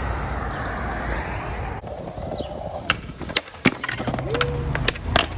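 Skateboard wheels rolling over street asphalt, then, after about two seconds, a run of sharp clacks as a board's tail is popped and the board slaps back down on the ground during flip tricks.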